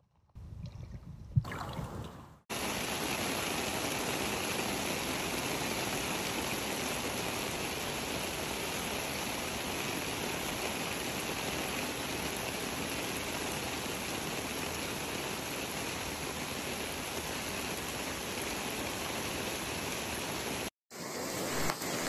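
A steady rush of water from floodwater pouring down a flooded street in heavy rain, starting abruptly a couple of seconds in and cutting off just before the end. Before it, a quieter stretch with one sharp knock.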